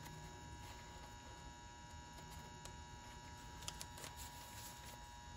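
Faint scraping of a putty knife through paint softened by stripper, with a few small clicks about two-thirds of the way in as the knife is wiped off on newspaper, over a steady electrical hum.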